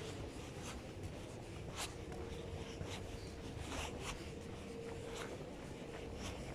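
Walking footsteps on paved ground, about two steps a second, over a faint steady hum.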